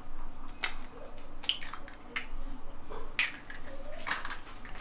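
An egg tapped on the rim of a stainless steel mixing bowl and cracked open, with the shell handled: a string of sharp clicks and taps, roughly one a second.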